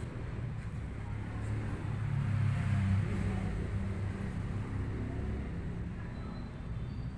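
A low rumble that swells about two to three seconds in and then eases off.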